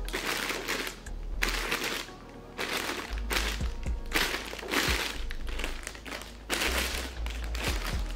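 Plastic packaging bag crinkling and rustling in repeated irregular bursts as it is handled and pulled at, with music playing underneath.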